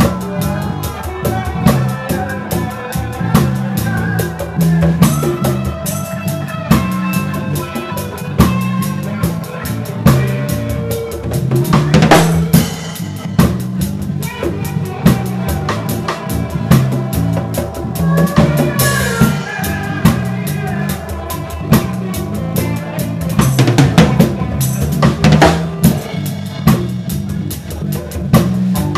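Reggae band playing live, heard close up at the drum kit: drums with rimshots and a few cymbal crashes, a bass line moving underneath, and other instruments above.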